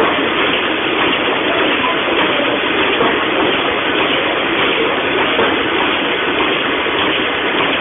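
Sheet-fed printing press running, giving a loud, steady mechanical noise.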